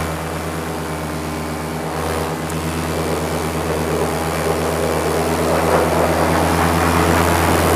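Paramotor engine and propeller running steadily in flight, a constant droning hum that grows gradually louder through the second half.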